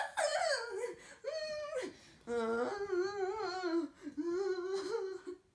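A young person's high-pitched voice making four drawn-out, wavering sounds in a row, with no words, in a small room.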